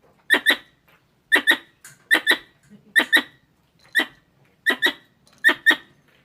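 Squirrel calls: sharp, repeated chirps, mostly in quick doubled pairs about once a second, as used to lure squirrels in decoy calling.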